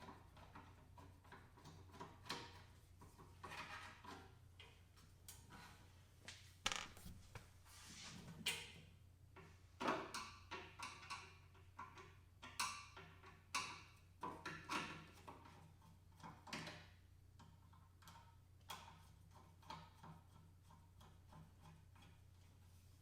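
Irregular clicks and knocks of a Phillips screwdriver and hands working screws out of the Crazy Cart XL's plastic cover, busiest in the middle, over a steady low hum.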